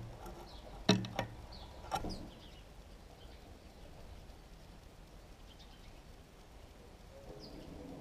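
Three sharp taps in the first two seconds from a house sparrow at a shallow dish of peanuts, then faint short chirps of sparrows now and then.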